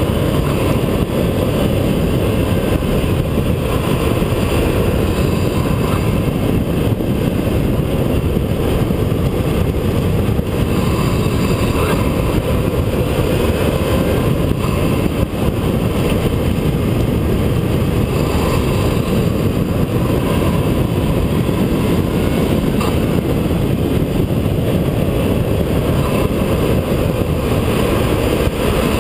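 Chevrolet Cobalt SS's turbocharged 2.0 L LNF Ecotec four-cylinder driving at speed, heard from the front bumper's fog-light opening: intake and turbo noise under a steady, dense low rumble of wind and road.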